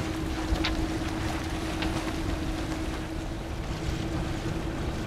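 Wind on the microphone and water washing past a sailboat under way in a light breeze, with a steady low hum that fades out about three seconds in.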